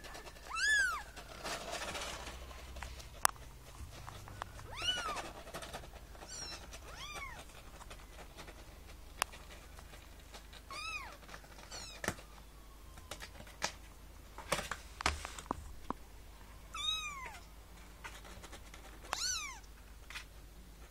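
Young kitten squeaking: about eight short, high-pitched meows spread out with pauses between them, each rising then falling in pitch. A few sharp clicks fall between the calls.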